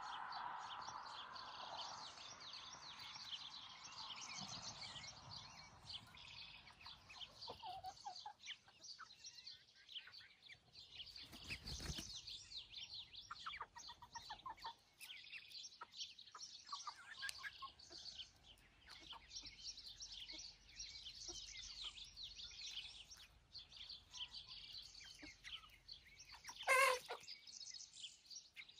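Backyard chickens clucking in the run over a steady scatter of high chirps. One loud, short hen call stands out near the end.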